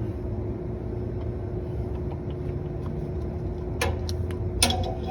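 Steady machine hum with a low rumble from the running HVAC package unit, with two sharp clicks near the end.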